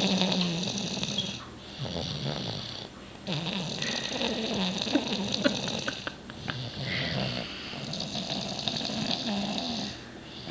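Snoring from someone asleep, a run of slow snoring breaths that swell and fade every few seconds.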